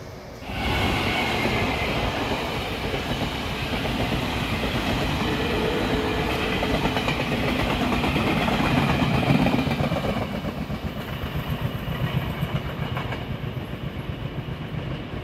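A Chu-Kuang express passenger train passing at speed, with a loud rush of wheels and coaches starting about half a second in. In the last few seconds it eases off into a regular clickety-clack of wheels over the rail joints as the train draws away.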